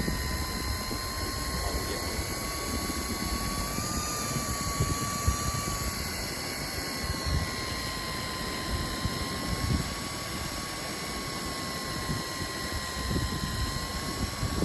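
Daiwa Tanacom electric fishing reel's motor whining steadily as it winds in line, its pitch wavering slightly, over a low rushing noise.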